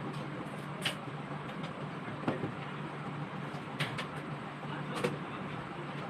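Steady background rumble with a low hum, broken by a few short, sharp clicks at uneven intervals.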